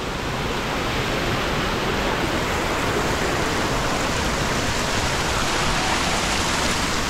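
Small stream of muddy runoff water cascading down over rocks and stones, a steady rushing of water.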